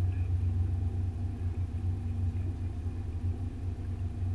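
Boat motor running steadily: a constant low rumble with a steady hum over it.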